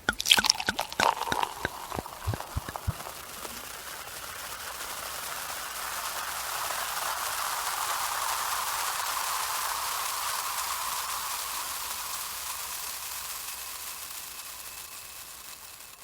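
Champagne fizzing: a few sharp, splashy clicks in the first three seconds, then a steady crackling hiss of bubbles that swells and slowly fades.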